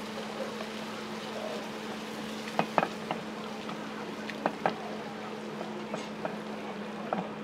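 Rosé pasta sauce simmering in a pan over a gas burner, with a steady low hum underneath. Wooden chopsticks stir the spaghetti and knock sharply against the pan, twice in quick pairs about two and a half and four and a half seconds in.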